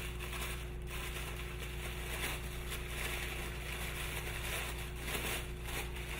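Tissue paper wrapping being ripped and crumpled by hand, an irregular crinkling rustle.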